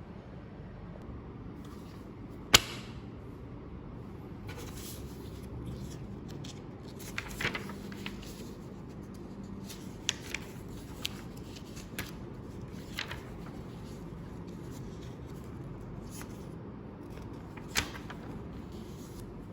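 Small objects being handled by hand: scattered light clicks and rustles over a low steady hum, with one sharp click about two and a half seconds in and another near the end.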